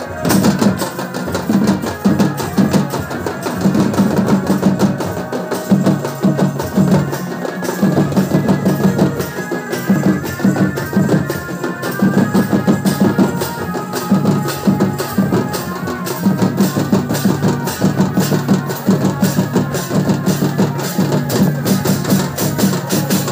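Tusu folk drumming: several slung drums beaten with sticks in a fast, steady rhythm, with hand cymbals clashing. A melody from a small electronic keyboard rises above the drums through the middle of the stretch.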